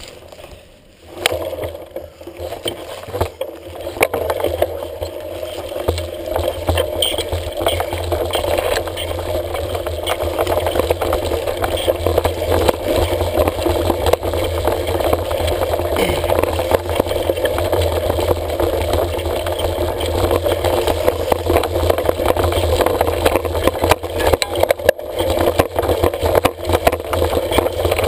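Mountain bike riding over a rough dirt trail: the tyres rumble and the bike and camera mount rattle and clatter constantly over the bumps. The noise starts about a second in.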